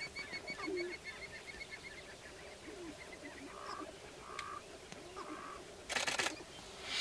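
Sharp-tailed grouse calling on a lek: repeated short, low cooing calls, with three brief nasal calls in the middle and a loud, quick rattling burst about six seconds in. A rapid series of high notes in the first few seconds slows down and fades.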